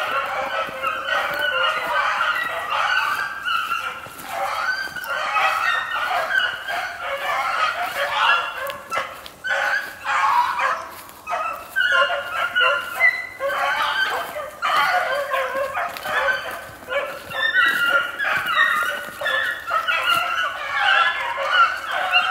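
Pack of young beagles baying on a rabbit's trail, many voices overlapping in a continuous chorus of bawls and chops with no break.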